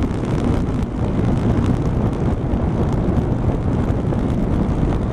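Steady wind rush over the microphone of a camera riding on a Honda Rebel motorcycle at about 45 mph, with the motorcycle's engine and road noise under it.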